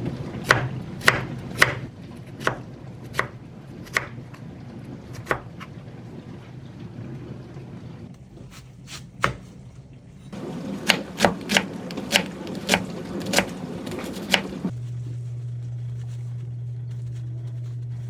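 Knife chopping food on a cutting board: sharp strikes in scattered spurts, then a quicker run of about three to four strokes a second. The chopping stops near the end and a steady low hum takes over.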